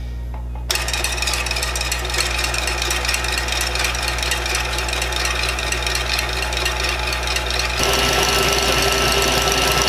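KitchenAid Classic stand mixer whipping heavy cream with its wire whip. The motor starts up just under a second in and runs steadily, then is switched to a higher speed near the end, running louder with a steady whine.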